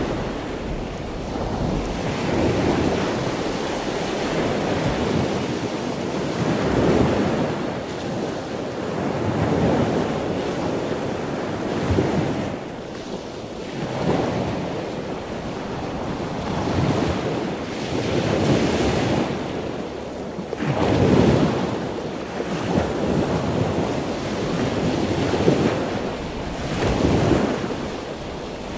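Sea waves washing onto a shore, each one swelling and falling back every two to three seconds, with wind on the microphone.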